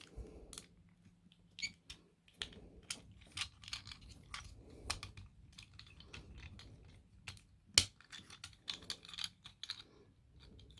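Plastic parts of a Transformers Cyberworld Optimus Prime toy clicking and tapping as it is handled and transformed, in light, irregular clicks with one sharper click about three-quarters of the way through.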